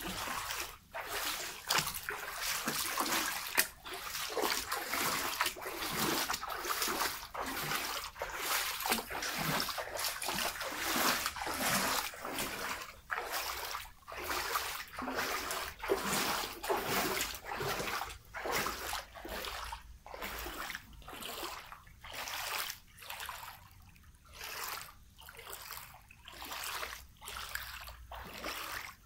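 A person wading through floodwater, splashing and sloshing with each step, about one to two steps a second. The splashes grow quieter and further apart in the second half.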